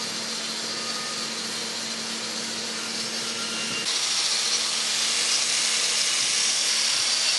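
Angle grinder with a wire brush running and then scouring the steel shell of a refrigerant cylinder, stripping old labels and graffiti. It runs steadily with a hum at first, and about four seconds in the sound turns louder and harsher as the brush bites into the metal.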